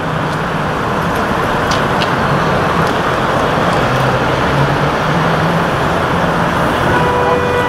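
Steady road traffic and vehicle engine noise with a low engine hum underneath. A brief high tone sounds near the end.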